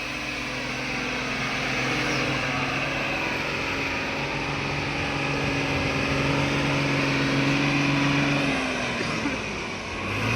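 Tata Signa 2830 tipper truck's diesel engine running steadily at raised revs; the revs fall about nine seconds in.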